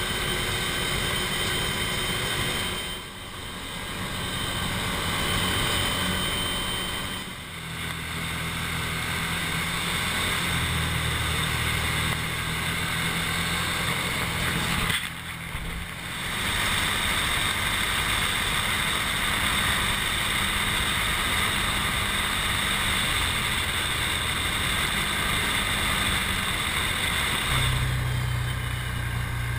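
Side-by-side ATV engine running steadily at trail speed over gravel, its low drone shifting in pitch, under wind and road rush. The sound dips briefly three times.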